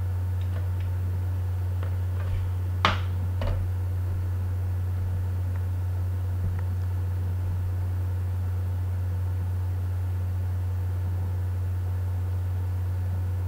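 Steady low electrical hum in the recording. A few small sharp clicks and taps fall between about half a second and three and a half seconds in, the loudest two close together near three seconds.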